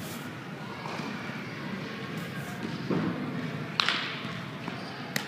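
A dull thud, then a sharp smack of a baseball into a leather fielding glove just under four seconds in, as a ground ball is fielded. A short sharp click follows near the end, over a steady background hiss.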